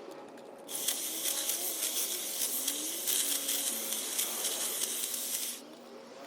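Battery-powered Ego hedge trimmer attachment running and cutting through camellia foliage: a steady hiss that starts under a second in and stops about five and a half seconds in.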